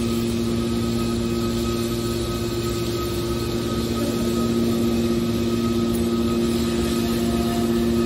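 Hydraulic power unit of a TCM HC81T-630 horizontal scrap metal baler running: a steady mechanical hum with two held low tones and a fainter higher whine.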